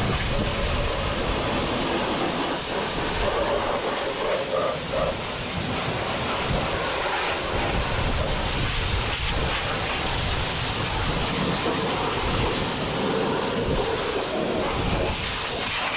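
High-pressure washer spraying water onto farm machinery, a steady hiss of the jet with the washer's pump running.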